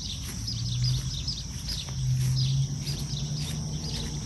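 Insects buzzing in a steady high drone while birds chirp over and over; a low droning note swells twice, about half a second in and again around two seconds in.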